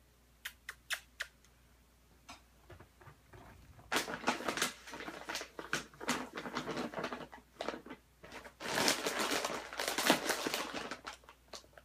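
A few light clicks of a golden retriever's claws on a tile floor, then long stretches of dense clicking and scuffling as the dog moves about, with a short break in the middle.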